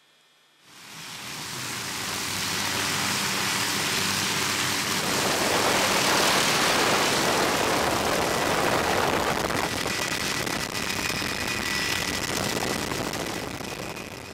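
Helicopter in flight: a loud, steady rush of rotor and engine noise that fades in about a second in, with a low hum underneath at first and a faint high whine near the end.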